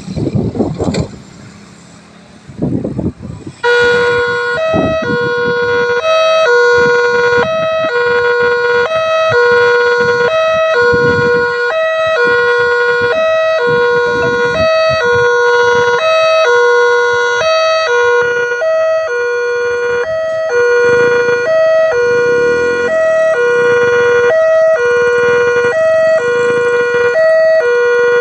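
Railway level-crossing warning alarm: an electronic siren alternating between a lower and a higher tone about once a second, starting about three and a half seconds in. Road traffic noise runs beneath it.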